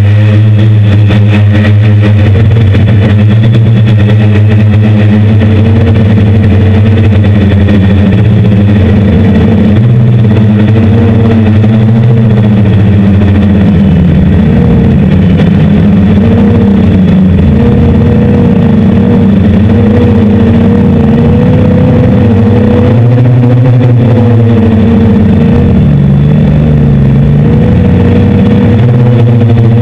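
Six brushless motors spinning 10-inch propellers on a hexacopter, a loud steady buzz in flight. Its pitch wavers up and down repeatedly in the second half as the throttle changes during fast manoeuvres.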